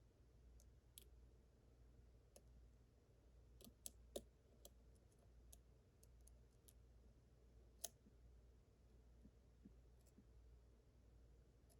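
Faint, scattered metallic clicks and ticks of a lock pick and tension wrench working the pins of a Yale 1-star Superior pin-tumbler lock, with a few sharper clicks about four seconds in and again near eight seconds, over a low steady hum.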